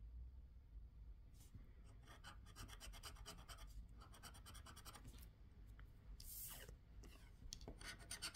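Faint scraping of a scratch-off lottery ticket's coating with a small pointed tool: quick, repeated strokes that start about a second and a half in, with a brief pause past the middle.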